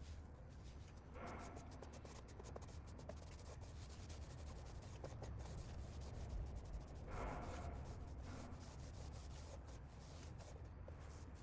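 Something rubbing over a wooden surface, with small clicks and two louder scrubbing strokes, about a second in and about seven seconds in, over a steady low hum.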